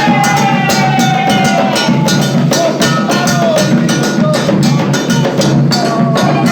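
Ilú drums playing a dense, steady rhythm, with held tones that slide slowly in pitch above the drumming.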